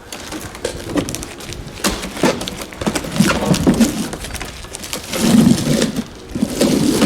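Knocks, clatter and scraping of a heavy wooden pallet and machine crate being shoved and turned by hand, with dull low sounds coming in heavy patches, loudest from about five seconds in.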